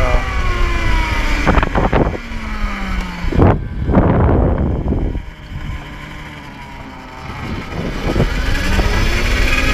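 2009 Zero MX electric dirt bike's drive whining, the pitch falling as the bike slows, quieter while it coasts, then rising again as it accelerates near the end. Two brief bursts of rushing noise in the first half.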